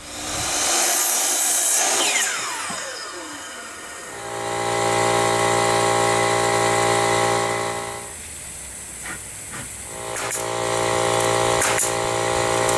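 Electric power saw running in bursts to cut trim pieces. The first run ends in a falling whine as the blade spins down. The motor then runs steadily twice more, with a few sharp clicks in between.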